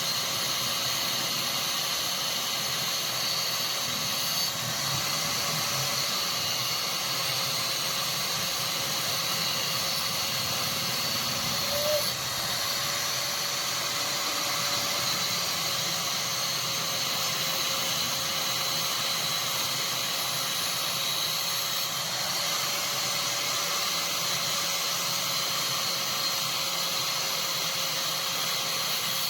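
A motor-driven workshop machine running steadily, giving an even hiss with a constant mid-pitched hum, with a brief blip about halfway through.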